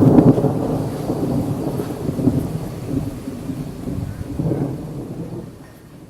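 Thunder rolling, loudest right at the start, swelling again about four and a half seconds in, then fading away near the end.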